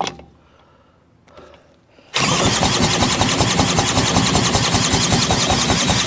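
Villiers engine of an Atco Standard lawnmower being spun over by a cordless drill on its flywheel nut: a loud, fast, steady churning that starts suddenly about two seconds in. The engine is cranking but not running.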